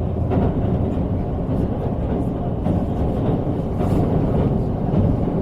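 Steady low rumble of an N700 series Shinkansen running at speed, heard inside the passenger cabin.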